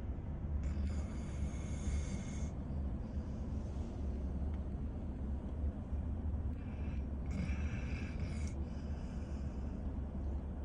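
A sleeping cat snoring: two drawn-out, hissing snores, one starting about a second in and one about seven seconds in, over a steady low rumble.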